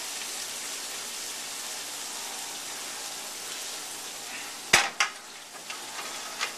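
Onions and peppers sizzling in omelet pans, a steady hiss. About three-quarters of the way through come two sharp knocks close together, then a couple of lighter taps.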